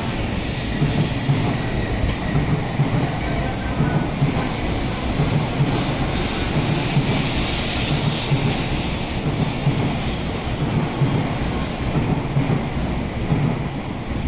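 N700S Shinkansen train departing, its cars rolling past at gathering speed: a steady rush of wheel and running noise with a rhythmic knocking from the wheels. It begins to fade as the last car passes near the end.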